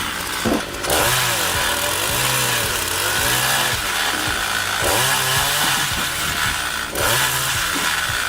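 Gasoline chainsaw mounted on a stand, running loud while cutting wood into blocks. The engine pitch rises and falls again and again.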